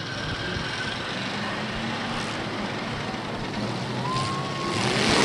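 Demolition derby cars' engines running and revving in the arena, with a short high squeal about four seconds in and the engines getting louder near the end.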